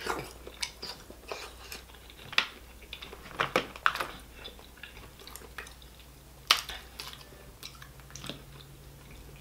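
Close-miked chewing and mouth sounds of eating, mixed with scattered short clicks and cracks as king crab leg shells are handled and pulled apart. The sharpest crack comes about six and a half seconds in.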